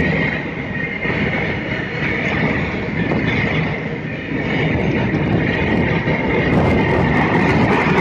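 A long freight train of bulk tank wagons rolling past close by: a continuous heavy rumble of steel wheels on rail with a steady high ringing over it and a clickety-clack over the rail joints. The clicking grows sharper and denser near the end.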